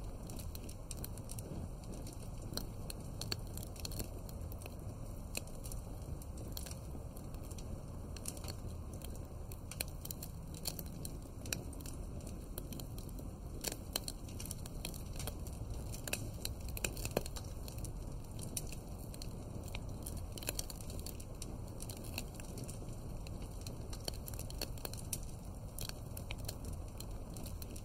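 Wood fire crackling: frequent irregular pops and snaps over a steady low rumble of flames.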